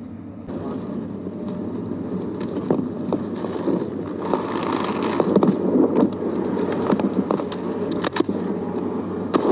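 Helicopter running overhead: a steady low hum under a rushing wind noise that grows louder about half a second in, with scattered knocks from the rope and gear. Near the end come a few sharp cracks of rifle fire.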